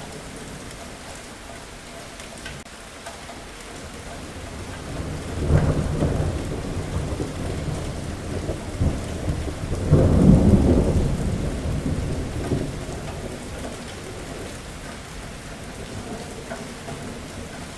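Thunderstorm: steady rain with two rolls of thunder, one about five seconds in and a louder one around ten seconds that rumbles on and fades over a few seconds.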